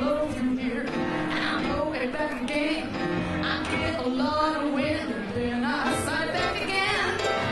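A woman singing while accompanying herself on a grand piano, her voice sliding up and down in pitch over the piano.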